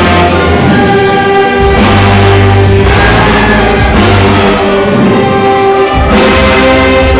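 Orchestra with a brass band playing an instrumental overture loudly in held full chords. The chord changes, with the bass coming in strong, about two seconds in, and again near six seconds.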